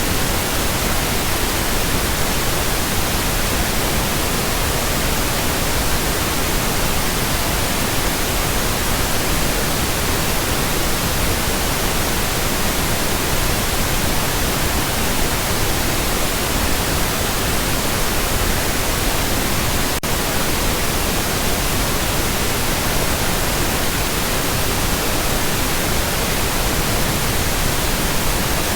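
Steady pink noise: a continuous, even hiss at a constant level.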